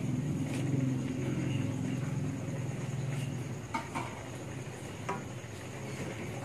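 Kitchen cooking sounds: a steady low hum under a few light clinks of kitchenware, one pair about four seconds in and one about five seconds in, as leafy greens go into a wok and a wooden spatula is picked up.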